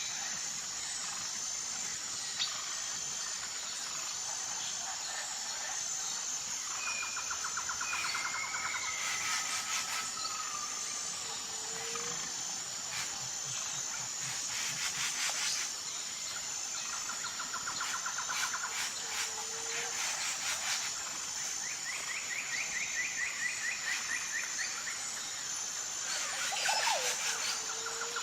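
Forest ambience: insects keep up a steady high-pitched drone while birds call over it with repeated fast trills and chirps, a few short low notes, and bursts of rapid clicking.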